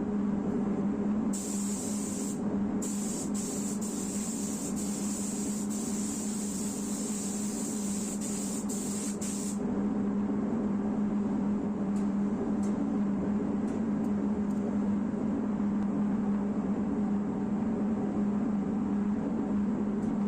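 Pneumatic paint spray gun hissing in passes, with a short break, then stopping about halfway through. A steady motor hum runs underneath throughout.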